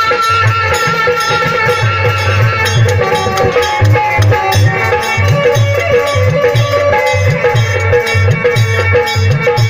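Live folk ensemble playing an instrumental passage: an electronic keyboard melody over a steady dholak beat, with small hand cymbals (manjira) striking along.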